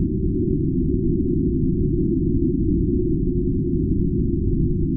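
Slowed-down sound of a model rocket launch: a steady, deep, muffled rumble with no high sound in it.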